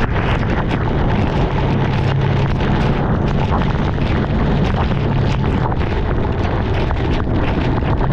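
Sport bike engine running at a steady cruising speed under heavy wind rumble on the camera's microphone, with frequent sharp ticks throughout.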